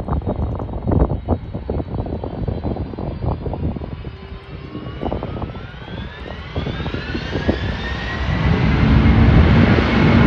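Wind buffets the microphone, then a jet airliner's engines come in as a whine that rises in pitch and levels off. The engine sound grows much louder over the last couple of seconds.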